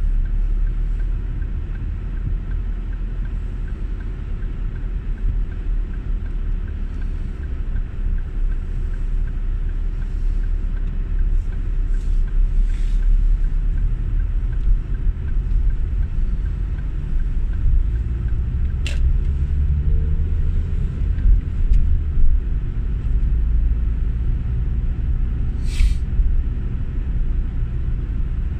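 A car driving at low speed, heard from inside the cabin: a steady low engine and road rumble, with a faint regular ticking in the first third and the engine note rising briefly about two-thirds of the way through as it speeds up. Two sharp clicks stand out over the rumble.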